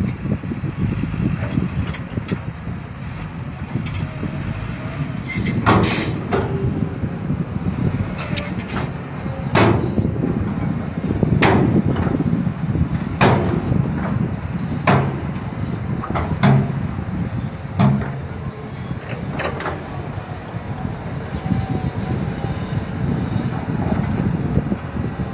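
Heavy diesel earthmoving machinery running with a steady low rumble, and a series of sharp metallic clanks, about one every one and a half to two seconds, through the middle of the stretch.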